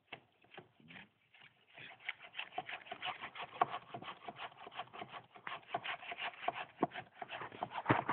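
Hand saw cutting through a small tree trunk, with fast back-and-forth rasping strokes that pick up about two seconds in and keep going.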